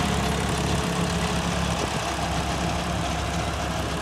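John Deere 5210 tractor's diesel engine running steadily under load while it drives a super seeder, a continuous drone that fades a little as the tractor moves away.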